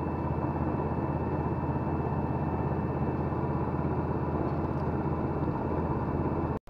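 Hydraulic press running with a steady motor hum while it presses a new wheel hub bearing into the steering knuckle. The hum cuts off abruptly near the end.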